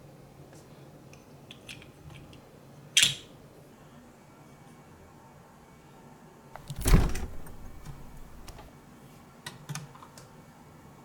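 Light clicks and taps of small hard objects being handled and set down, with a sharp clack about three seconds in and a louder knock with a brief rattle about seven seconds in.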